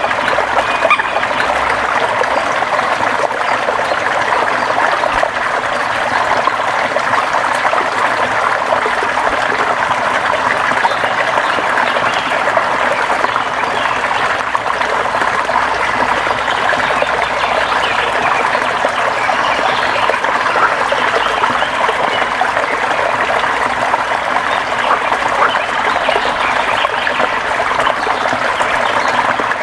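River water running steadily over stones, a constant close babble and trickle.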